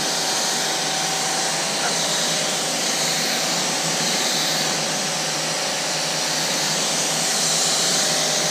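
Kranzle 1122TST electric pressure washer spraying water onto a car's bodywork with the gun held open: a loud, steady hiss of the water jet over a faint, even motor hum.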